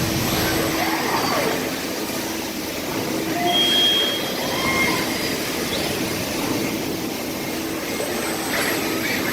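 Industrial machinery running steadily, a continuous mechanical noise with short whining tones and pitch glides that come and go.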